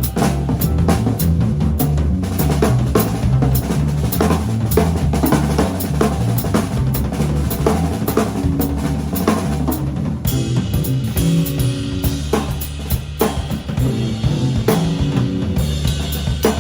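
Live band playing an instrumental groove: a drum kit with kick, snare and rimshots drives steadily under a bass line that steps between notes. Sustained chords join in about ten seconds in.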